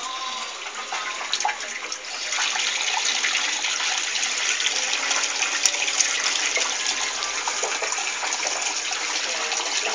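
Heavy rain falling, a dense steady hiss of many small drop-hits, louder from about two seconds in.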